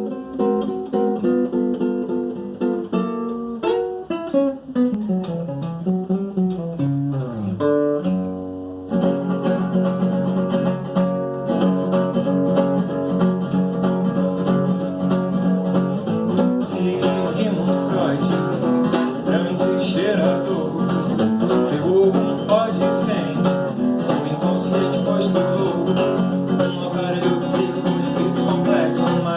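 Music led by acoustic guitar: melodic lines stepping down in pitch for the first nine seconds or so, then a fuller, denser accompaniment from about nine seconds in.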